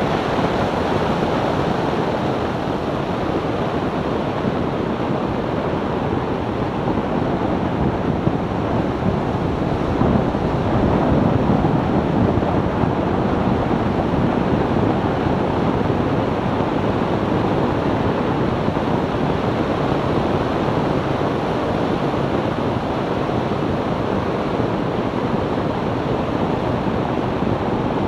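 Steady rushing wind and tyre noise from a 2002 BMW E46 330Ci at cruising speed, with wind buffeting the microphone; no distinct engine note stands out. It swells slightly a little under halfway through.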